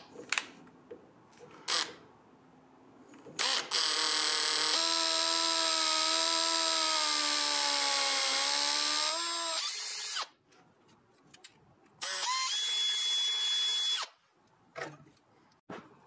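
Power drill with a twist bit boring into a block of wood: one long run of about six seconds whose pitch sags slightly and rises again just before it stops, then, after a pause, a shorter run of about two seconds that starts with a rising whine as the motor spins up. A few light clicks come before and after the drilling.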